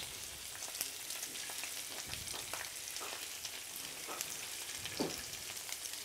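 Hot fat sizzling in a frying pan around a turbot fillet and sage leaves, crackling as peeled langoustine tails are laid into it one by one. A louder pop comes about five seconds in.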